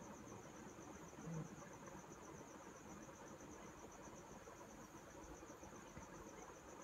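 Near silence with an insect chirping faintly and steadily in an even high pulse, about five pulses a second, and one brief low bump about a second and a half in.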